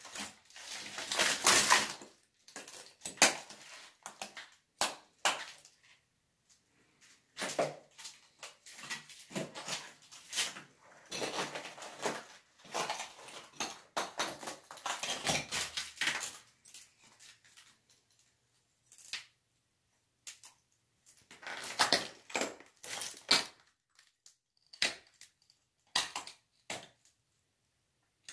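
Footsteps crunching and scraping over debris on a littered floor, in three uneven stretches separated by pauses, with a few single clicks near the end.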